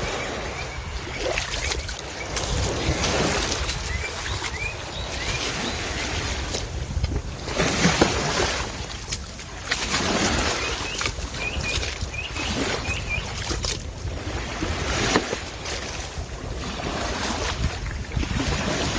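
Wind buffeting the microphone outdoors in gusts. A small bird chirps faintly a few times.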